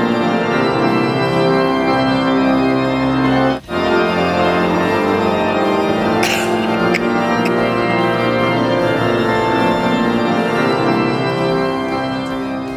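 Cathedral pipe organ playing sustained chords. About three and a half seconds in it cuts off for a moment and starts again, and it fades out near the end.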